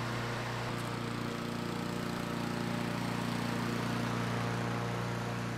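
Honda walk-behind lawn mower's single-cylinder gasoline engine running steadily as the mower is pushed, its note getting a little fuller about a second in.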